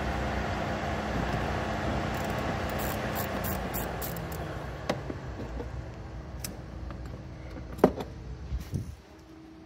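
A motor vehicle running, its low hum dropping in pitch about three and a half seconds in, then fading and stopping near the end. Over it come a few sharp clicks of plastic trim and tools being worked at the windshield cowl panel, the loudest about eight seconds in.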